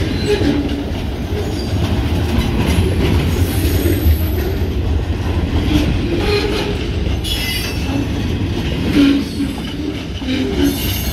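Loaded pulpwood log cars of a freight train rolling past close by: a steady rumble of wheels on rail, with wheels squealing and rail-joint clatter on and off.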